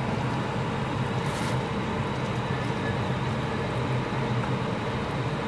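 A steady hum and hiss runs throughout while a wooden spatula stirs a fish stew in a nonstick pot, with a brief faint scrape about a second and a half in.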